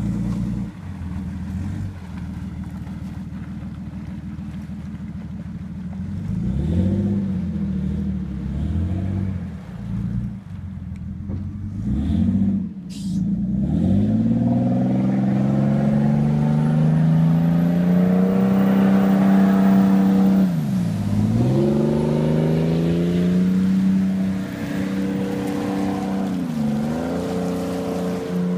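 Engines of a Border Patrol riverine shallow-draft patrol boat running at idle, then revving up and down repeatedly as the boat maneuvers. The revs climb and hold high for several seconds past the middle, then drop sharply and rise again.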